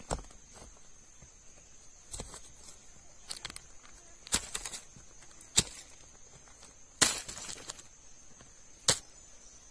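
Hand scraping loose soil and knocking stones aside: about seven sharp clicks and scuffs of stone on stone and dirt, at irregular intervals, the loudest two in the middle of the stretch.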